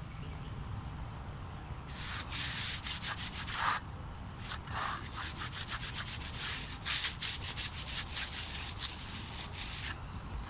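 Hand finishing tool rubbing and scraping over a fresh concrete slab in a run of repeated strokes, starting about two seconds in and stopping shortly before the end.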